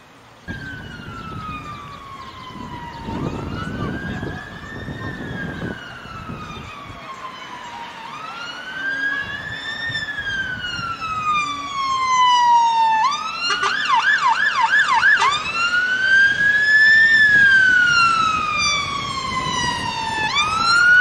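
Fire engine siren on a slow wail, rising and falling every four to five seconds. About two-thirds of the way in it switches briefly to a fast yelp, then returns to the wail, growing louder as it approaches.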